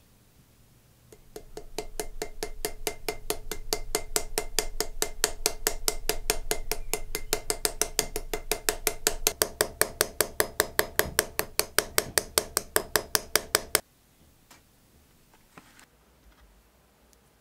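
Small hammer tapping a brass pin through the wooden scales of a straight razor against an anvil, peening the pin over to rivet the scales together. The light, ringing metallic taps come about five a second and stop abruptly.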